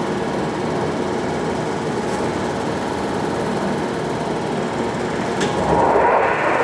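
Clausing-Colchester 8052 gap bed engine lathe running at a faster spindle speed, giving a steady mechanical whir. There is a sharp click a little past five seconds in, and the machine grows louder near the end.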